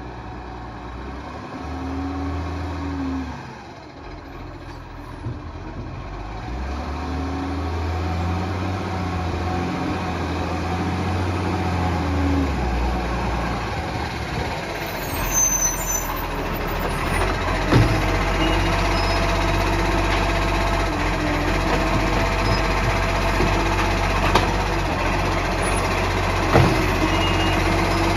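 Iveco Acco side-loader garbage truck driving up and pulling in, its diesel engine rising and falling in pitch twice as it accelerates and slows. About halfway in the air brakes hiss briefly. The engine then runs on steadily while the automated arm works, with a few sharp knocks near the end as it grabs and lifts a wheelie bin.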